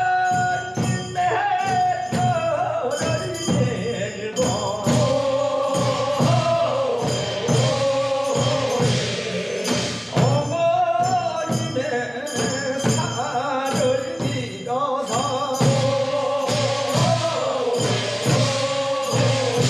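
A group of men singing a Korean funeral bier song (sangyeo sori), with a steady percussion beat under the voices.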